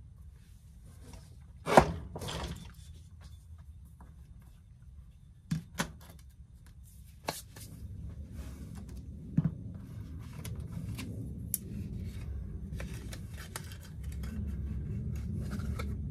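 Scattered knocks and clicks of small objects being handled, the loudest about two seconds in, over a low rumble that grows louder from about eight seconds in and again near the end.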